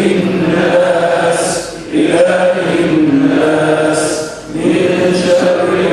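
A man chanting Quran recitation in Arabic, in long melodic phrases broken by short breaths about two and four and a half seconds in.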